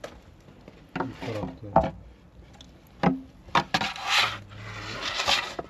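Irregular knocks and scraping: several sharp knocks, then a longer stretch of scraping near the end.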